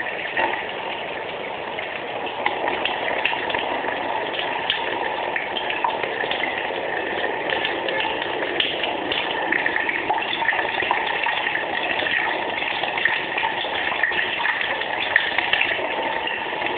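Tap water running steadily over a Swiss Army knife held under the stream, with scattered light clicks and splashes as the knife's tools are worked in the water.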